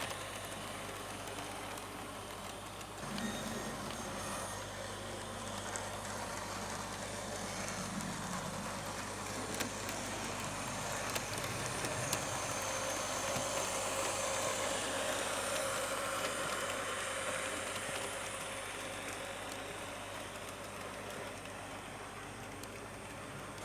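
Hornby HM7000 sound decoder playing a locomotive's engine sounds through the model's small speaker, a steady running sound with a few faint clicks.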